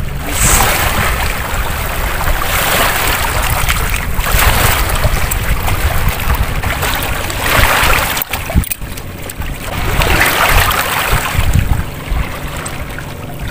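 Small sea waves washing over shoreline rocks, swelling and falling back every two to three seconds, with wind buffeting the microphone in a low rumble.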